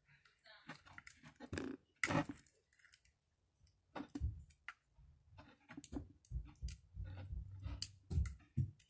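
Handling noise from plastic kids' headphones and their cord being untangled by hand: irregular clicks, rustles and dull knocks, busiest in the second half.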